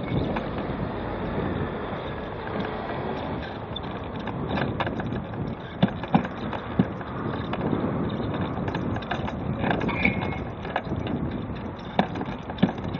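Road traffic passing on a street, with wind buffeting the microphone and a few short sharp knocks.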